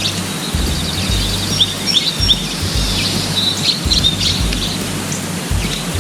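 Squirrel chattering: a rapid run of high, short chirps and ticking trills, over an on-and-off low rumble.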